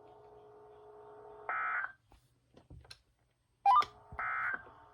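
Weather radio SAME data bursts: two short, buzzy digital squawks about a second and a half and four seconds in, the end-of-message code that closes a tornado warning. A faint steady hum comes before the first burst, and there is a sharp click just before the second.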